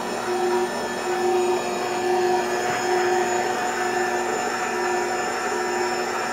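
Mondial Profissional Eletrônica Premium stand mixer's motor running steadily as its dough hook kneads bread dough, with a regular pulse about once a second. It does not strain under the dough.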